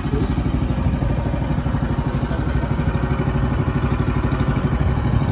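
Small air-cooled engine on a wooden fishing boat running steadily, with a rapid, even chugging pulse.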